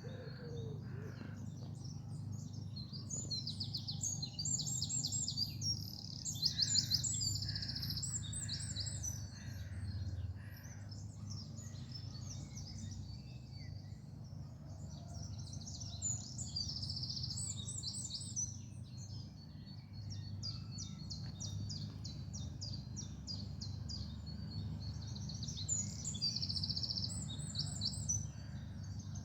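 Songbirds singing in woodland: rapid high trills and chirping phrases repeating again and again, over a steady low rumble.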